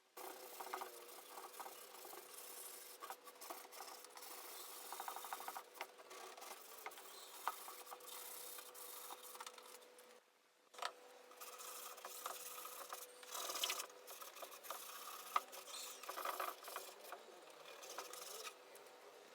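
Hand sanding on wood: an abrasive rubbed back and forth in long runs of scratchy strokes, with a short pause about ten seconds in.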